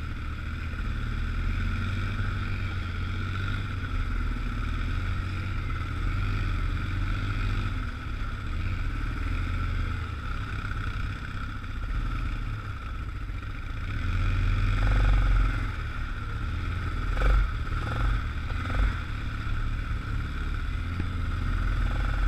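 ATV engine running at low speed in four-wheel-drive low as the machine crawls over rough trail, with a few knocks from the machine jolting over the ground about three quarters of the way through.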